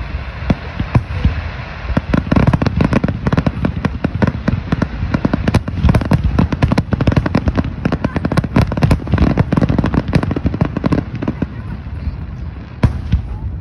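Aerial fireworks shells bursting in rapid succession: a dense barrage of bangs and crackle over a continuous low rumble, thinning out near the end.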